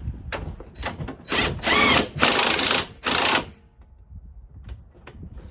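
Power tool running mounting bolts in, in three short bursts about a second and a half in, the first with a whine that rises and falls.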